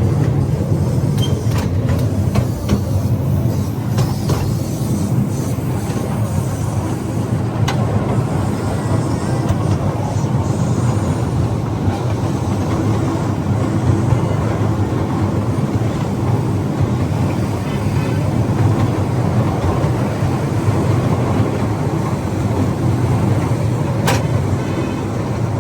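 Steady low rumble of a small tourist train in motion, heard from on board, with a few sharp clicks in the first few seconds.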